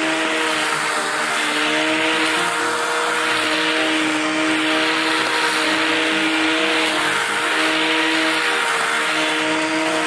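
Electric angle grinder fitted with a cable-tie cutting head, running at speed with a steady motor whine while its nylon ties whip through dry grass, a rushing hiss that swells and eases every second or two.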